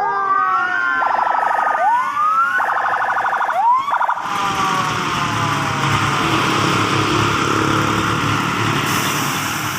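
Emergency-vehicle electronic sirens of fire engines and disaster-response vehicles. Falling wails fade out while one siren gives three rising whoops, each followed by a short burst of fast pulsing yelp. About four seconds in, the siren stops abruptly and a steady, noisy rumble takes over.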